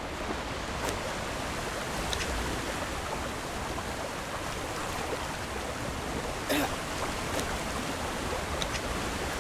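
Steady rushing of a waterfall's falling water, with a few brief clicks; the most distinct is a short knock about six and a half seconds in.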